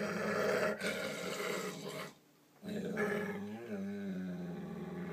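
Dog growling in two long, steady growls with a short break about two seconds in: a warning growl over his crunchies, which he won't share.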